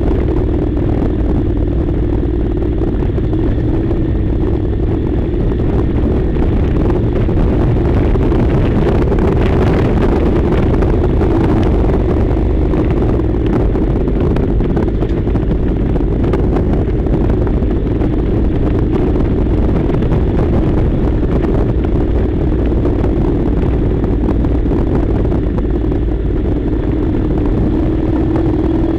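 Honda NC700's parallel-twin engine running steadily while riding, with a steady low rumble of wind buffeting on the microphone underneath it.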